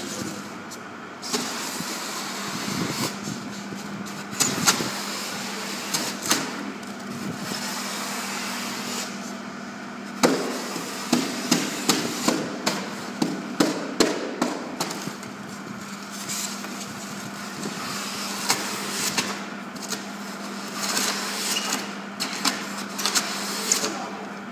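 Hand tools hacking into a large block of rigid foam, chunks crunching and tearing loose: irregular sharp chops, coming thickest in a quick run in the middle, over a steady low hum.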